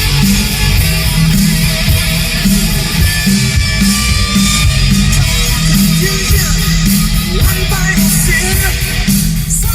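Loud rock music with guitar and heavy, pulsing bass played through a speaker system, the low end carried by a repaired Alpine Type X subwoofer under test.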